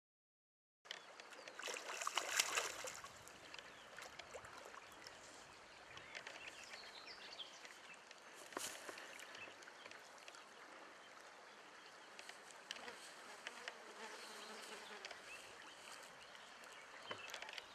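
Faint riverside ambience: insects buzzing and river water trickling, with scattered small clicks. It opens with a moment of dead silence.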